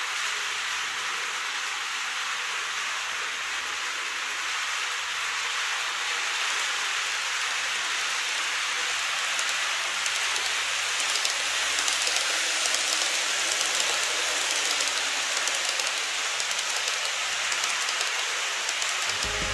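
N-gauge model of an E233-series electric train running on plastic track, its motor and wheels giving a steady hissing whir that grows a little louder as it passes close by, about halfway through.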